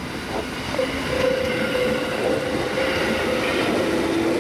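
A JR 211 series electric multiple unit local train running past close by, its wheels and running gear rumbling on the rails. A steady whine comes in about a second in and gets louder, and a second, lower whine joins about two seconds in.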